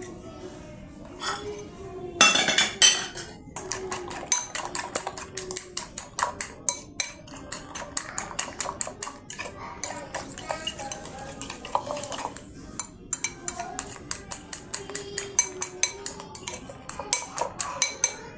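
A metal utensil beating quickly in a bowl, a fast run of clinks about four a second, as when whisking eggs or batter by hand.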